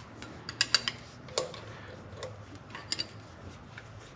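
Scattered light metallic clicks and taps of hand-tool work on A/C hose fittings, irregularly spaced, over a low steady hum.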